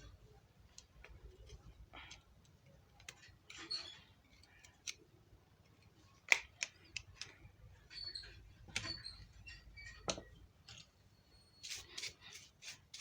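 Quiet, scattered small clicks and taps of a Jio F220B feature phone's plastic casing and parts being handled during repair, with one sharper click about six seconds in.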